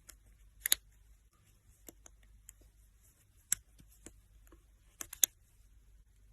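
Scattered sharp clicks or taps of small hard objects: a quick double click just under a second in, a single one at about three and a half seconds, and a quick group of three around five seconds.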